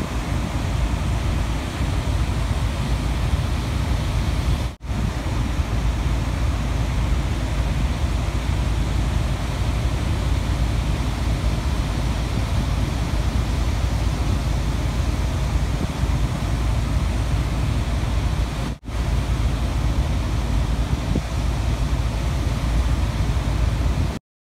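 Surf breaking and washing on a sandy beach under steady wind rumbling on the microphone. The sound drops out for a moment twice and cuts off shortly before the end.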